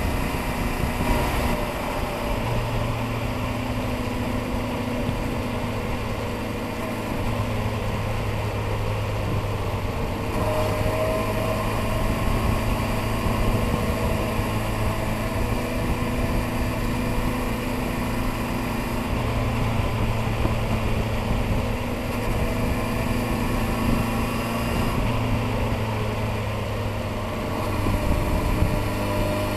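Motorcycle engine running at road speed, heard from a camera mounted on its fuel tank. Its pitch rises and falls gently with the throttle and climbs, getting louder, near the end.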